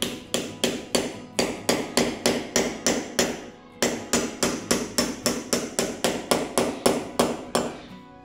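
Small hammer driving a small nail through a thin fibreboard strip into a wall: rapid, even light strikes, about four a second, with a short pause a few seconds in.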